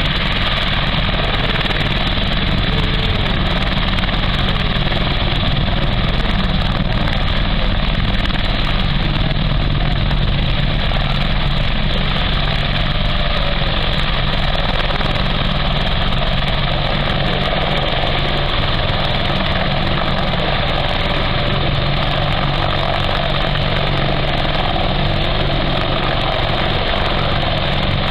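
Westland Apache AH1 attack helicopter, its rotors and twin turboshaft engines running steadily at high power as it lifts off and climbs away.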